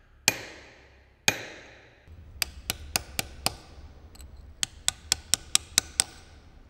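Hammer striking a steel chisel to cut a letter into granite: two ringing blows about a second apart, then two runs of quick, sharp taps at about four a second.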